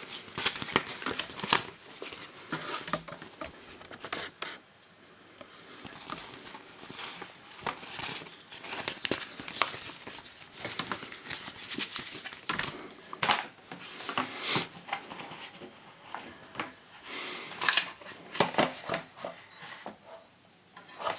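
Paper and cardboard packaging being handled: a folded instruction leaflet opened and leafed through and a cardboard sleeve moved about, giving irregular rustles and crinkles with a short lull about five seconds in.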